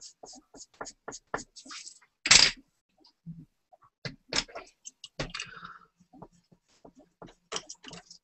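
Computer keyboard typing: irregular keystroke clicks, with one louder sharp clatter about two seconds in and a short scrape a little after five seconds.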